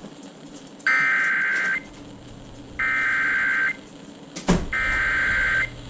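Emergency Alert System SAME header: three identical bursts of data warble, each just under a second long with about a second between them, marking the start of an incoming alert. A sharp click falls between the second and third bursts.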